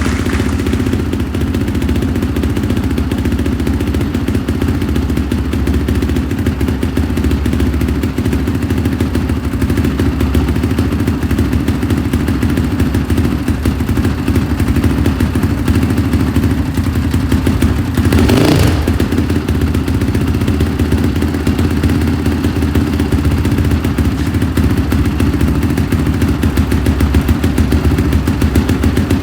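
2005 Honda CRF450R's single-cylinder four-stroke engine running at a steady idle, now started after a top-end rebuild, with one brief louder burst about two-thirds of the way through.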